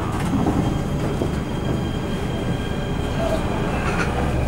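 MTR K-Train metro car heard from inside as it pulls out of an underground station: a steady low rumble with a thin electric whine from the traction equipment. Near the end a higher whine starts to rise in pitch as the train gathers speed.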